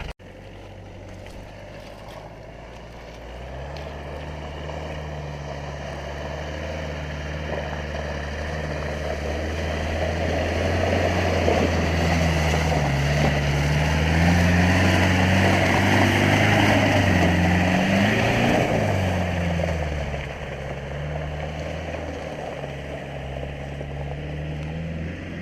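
1994 Land Rover Discovery I's 2.5-litre 300Tdi four-cylinder turbodiesel running under load as the vehicle drives through, growing louder toward the middle and easing off near the end, its pitch rising and falling in the loudest stretch.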